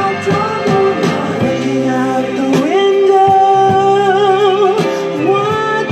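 Recorded soul ballad between sung lines: the band backing plays on under a melody that glides up and then holds long notes that waver in pitch.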